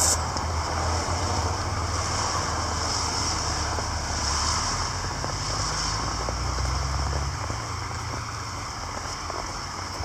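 Outdoor wind noise over a steady low rumble; the rumble eases off about seven and a half seconds in.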